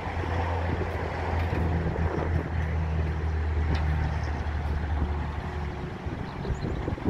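Engine of a 2006 Ford F-450 bucket truck running and driving the ETI aerial lift's hydraulics, a steady low hum that drops away about five and a half seconds in.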